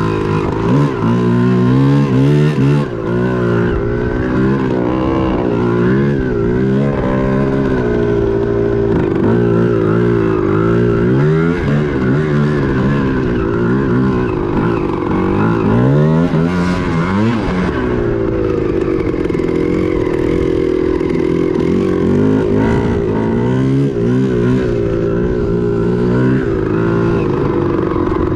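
Yamaha Tri-Z 250 three-wheeler's two-stroke single-cylinder engine being ridden hard, revving up and down, its pitch climbing and dropping again and again through the gears. It holds steadier for a few seconds past the middle.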